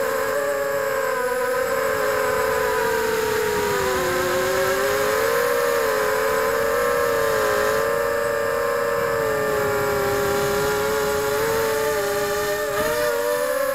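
Electric motors and propellers of an FPV drone in flight: a steady whine made of several tones together, its pitch wavering up and down as the throttle changes.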